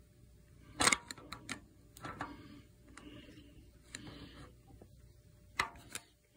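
Oil pump intermediate drive gear being turned with a screwdriver down the distributor bore of a Chrysler 440 big block, its gear seeking to mesh: sharp metal clicks about a second in and again near the end, with soft scraping in between.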